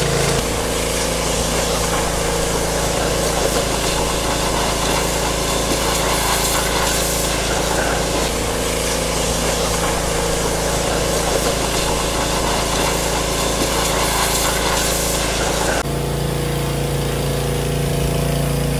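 Pressure washer running steadily, its motor humming under the hiss of the high-pressure water jet spraying down farm equipment. The hum changes abruptly about three seconds before the end.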